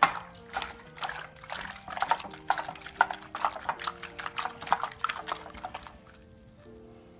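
Homemade glue-and-borax slime squelching and popping as it is squeezed in the hands, many short wet squishes in quick succession that stop about six seconds in. Soft background music plays underneath.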